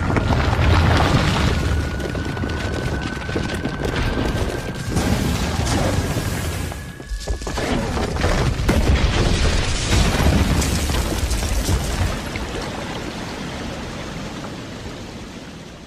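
Deep booming rumbles and crashing, crumbling rock from an animated film's sound effects, with orchestral score underneath. A steady, slowly rising high tone runs through the first half. The noise drops briefly about seven seconds in, then comes back and fades away near the end.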